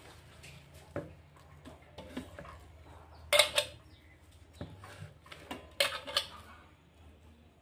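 Hands scooping minced chicken out of a stainless-steel mixer-grinder jar onto a steel plate: scattered soft knocks and scrapes against the metal, with louder clattering about three and a half seconds in and again around six seconds.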